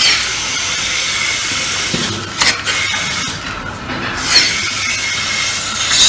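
Milking machine teat cups hissing as they suck in air while being fitted onto a cow's teats under vacuum, with sharper sucking surges about two and a half and four and a half seconds in.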